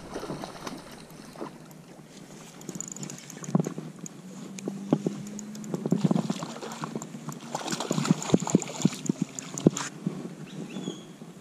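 A hooked trout splashing and thrashing at the surface close to the bank while it is reeled in on a spinning rod, with irregular sharp clicks and rattles from the reel and tackle. The splashing and clicking grow busier in the middle of the fight and ease off near the end.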